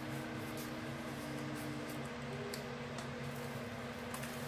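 Steady low background hum, with a few faint soft ticks as the diamond painting canvas is handled and turned over.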